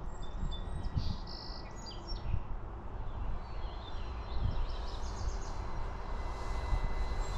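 Birds chirping here and there over the low, gusting rumble of wind on the microphone, with a faint steady high tone underneath.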